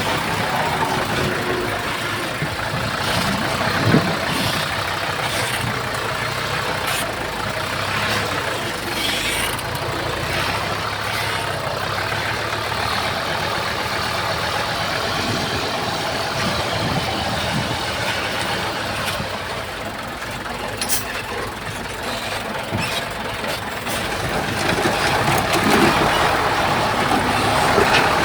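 Heavy diesel earthmoving machinery running steadily, with scattered sharp clanks, one about four seconds in. It grows louder over the last few seconds.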